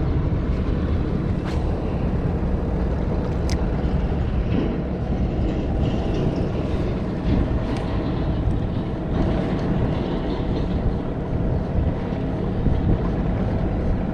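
Boat's outboard motor running steadily under way, a constant low drone with the rush of water and air over it.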